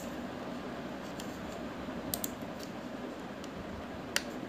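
A few sharp computer keyboard and mouse clicks, one near the start, a pair about two seconds in and one just after four seconds, over a steady background hiss.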